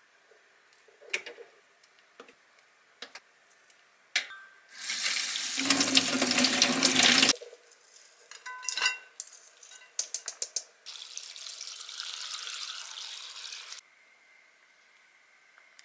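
Kitchen tap water running for about two and a half seconds over bean sprouts in a steel mesh strainer, rinsing them. Light clicks follow as the wet sprouts and strainer are handled, then a quieter hiss for a few seconds.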